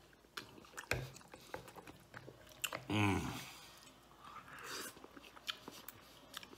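A person eating spaghetti: chewing and slurping noodles off a fork, with small wet mouth clicks, and a short hum of the voice about three seconds in.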